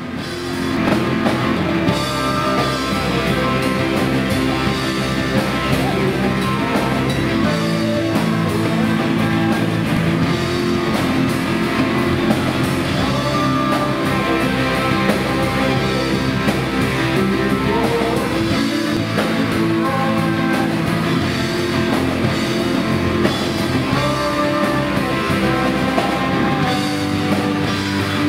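Rock music with guitar and drum kit, coming in abruptly about a second in and then carrying on at a steady, loud level.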